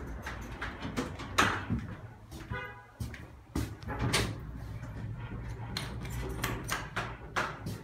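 Passenger elevator's sliding doors closing, with a short buzzing tone about two and a half seconds in. A low steady hum follows, with scattered clicks as a floor button is pressed.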